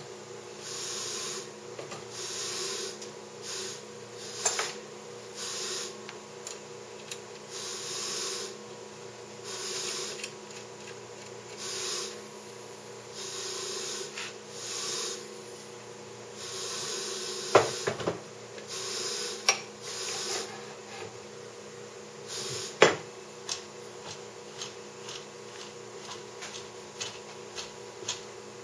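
Homemade glass-printer rig with a steady hum and a rasping rub that comes back about every two seconds. A few sharp knocks sound about two-thirds of the way through.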